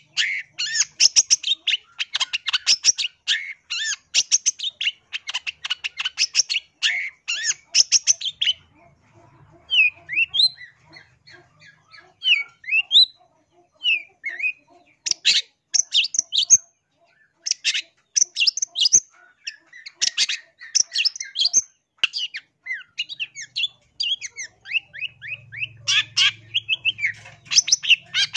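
Long-tailed shrike (cendet) singing in fast, harsh, chattering phrases of rapid scratchy notes. A few seconds in the middle turn sparser and softer, with short sliding whistled notes, before the dense chattering resumes.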